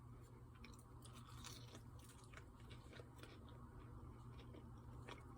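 Faint chewing of a crunchy, breaded potato wedge: soft, irregular crunches and mouth clicks.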